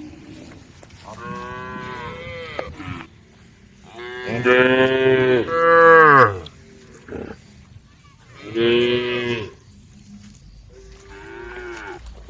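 Cattle mooing: four separate calls. The loudest and longest comes near the middle, lasts about two seconds and falls in pitch at its end, and the last call is faint.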